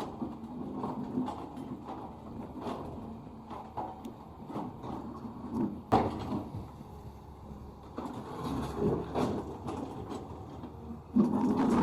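Cat 320D2 hydraulic excavator working crushed-stone aggregate: its engine running under load with irregular clunks and scraping of stone, a sharp knock about six seconds in and a louder burst of clatter near the end.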